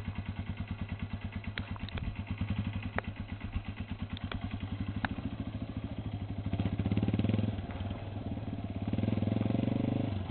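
Motorcycle engine running at an even, steady chug, then revved up briefly twice, once about six seconds in and again about nine seconds in. A few small clicks sound early on.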